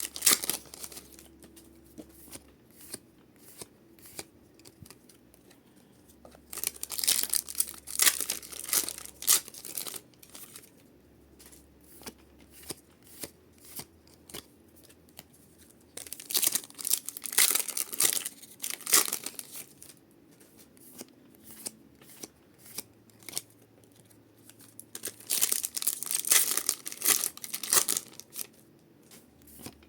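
Foil Pokémon booster packs being torn open and crinkled, in three bouts about nine seconds apart, with light clicks and rustles of card handling in between.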